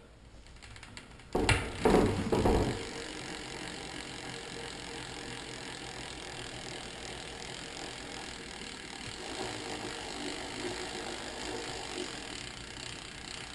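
Formula DC-52 rear bicycle hub freewheeling: a few loud knocks about a second and a half in as the wheel is set going, then the freehub's pawls ratchet steadily as the wheel coasts, not very loud.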